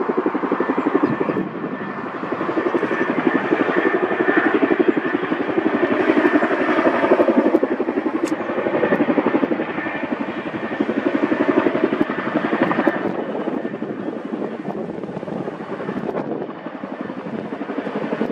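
CH-47 Chinook tandem-rotor helicopter flying close overhead, its rotors beating in a rapid, steady chop. It is loudest in the middle and eases off somewhat after about thirteen seconds.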